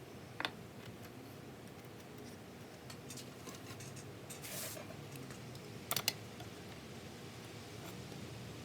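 A few sharp clicks, one about half a second in and a quick double click about six seconds in, with a short hiss between them, over faint room noise.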